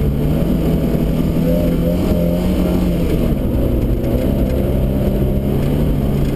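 Rally car engine running hard at speed, heard from inside the cabin, its revs rising and falling as the car is driven through the stage.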